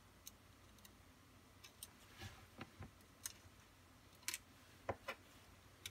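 Scattered small clicks and taps of tweezers and small parts handled on the plastic base and circuit board of a Kato HO turnout. The two loudest clicks come about four and five seconds in.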